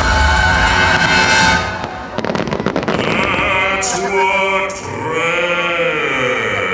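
Fireworks-show soundtrack music with a singing voice, broken about two seconds in by a rapid crackle of fireworks lasting about a second; the sung line then rises and falls near the end.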